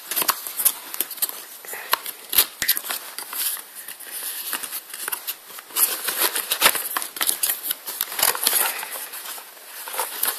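A cardboard box being handled and opened by hand: an irregular run of scraping, crackling and sharp clicks of cardboard and packing.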